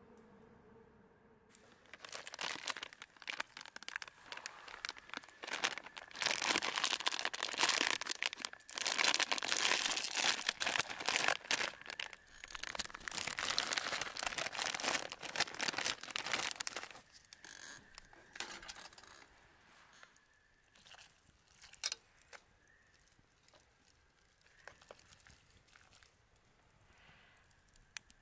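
Plastic instant-ramen packet crinkling as it is handled and torn open, dense and loudest for several seconds in the middle. It thins out to scattered small clicks and rustles for the last ten seconds or so.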